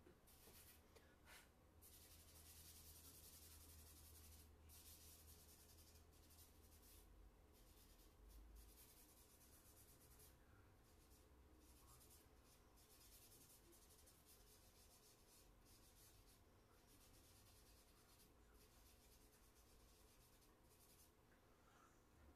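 Charcoal scratching and rubbing across drawing paper in faint, long strokes with short pauses between them, as a portrait is shaded and blended by hand.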